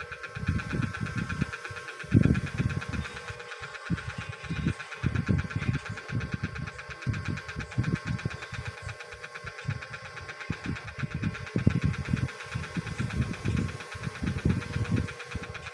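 A steady machine-like hum with a fast, even pulsing runs throughout. Over it come irregular low rumbles and bumps from hands handling the phone and pressing modelling clay right beside the microphone.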